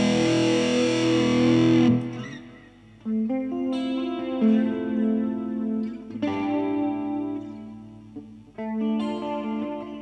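Electric guitar on a washy, wet, cleanish tone, its amp's dirt cleaned up by the guitar's volume and pickup selection, running through flanger, tape echo and reverb. A chord rings with a wavering flanger shimmer for about two seconds and fades, then single picked notes and arpeggiated chords ring out and trail off into echo.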